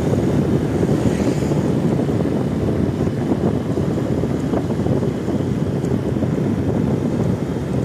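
Parade sound system stacked with subwoofers playing at very high volume. It comes through as a loud, steady, overloaded rumble with no clear beat.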